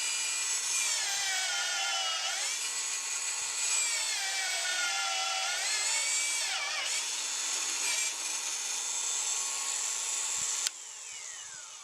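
Milwaukee M18 Fuel magnetic drill cutting a hole in 1/4-inch steel plate with an annular cutter: a high-pitched ringing whine that wavers up and down in pitch as the cutter works. It stops abruptly near the end, and a quieter whine falls away in pitch.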